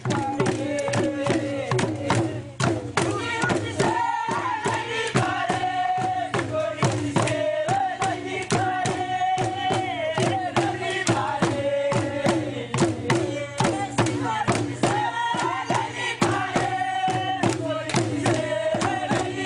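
Group of voices chanting together in long held notes over a steady drum beat of about two to three strikes a second.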